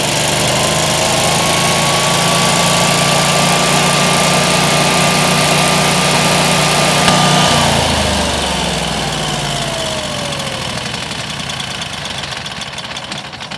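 Generac standby generator's V-twin engine running steadily in manual mode to warm the oil, with a whine above the engine note. About seven and a half seconds in it is shut off: the engine note stops and the whine falls away as it spins down.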